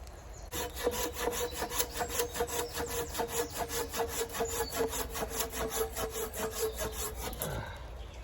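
Hand saw cutting through a log in steady back-and-forth strokes, the blade ringing, stopping shortly before the end.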